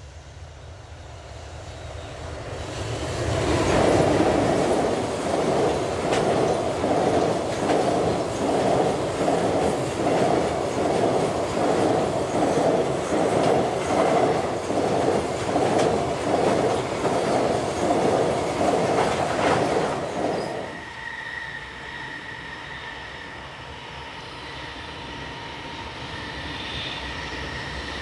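A JR Freight EH500 electric locomotive hauling a container freight train passes close by, loudest about four seconds in. A long run of container wagons follows, their wheels clattering in a steady rhythm. After an abrupt drop about 21 seconds in, a second EH500 approaches more quietly with a steady high whine.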